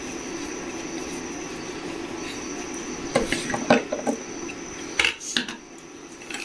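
Hand tools and pliers clinking against a small steel part while a replacement spring is fitted into the knife-lever assembly. A handful of sharp metallic clicks and taps come between about three and five and a half seconds in, over a steady hum.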